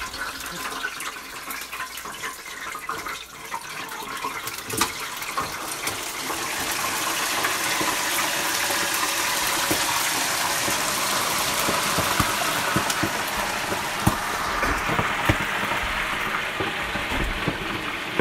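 Pork chunks frying in an electric deep fryer. A few clinks from the wire basket, then about five seconds in a loud, steady sizzle of hot oil starts up and keeps going, with a few knocks near the end as the fryer lid is shut.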